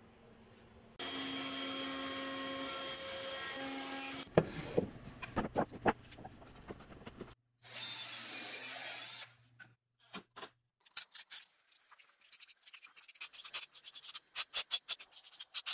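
Cordless drill work on plywood in quick succession: a drill motor running steadily, several sharp wooden knocks, a bit grinding into plywood, then a fast run of clicks and taps as the drill works into a plywood panel near the end.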